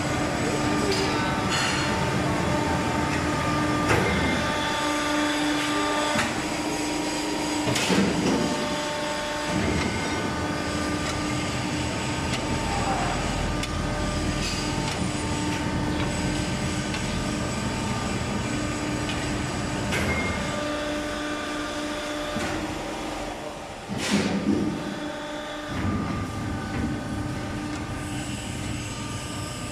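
C/Z purlin roll-forming machine running on test: a steady mechanical drone with several steady tones, broken by a few sharp bangs a few seconds apart.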